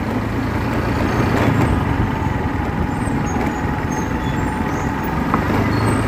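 Steady low rumble of a running motor vehicle engine under an even hiss, with no breaks or distinct knocks.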